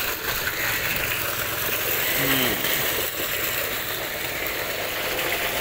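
Water gushing steadily from a plastic pipe outlet into a concrete irrigation channel, fed by a solar-powered pump. The flow is weaker than usual, which the owner puts down to the solar panels not having been cleaned.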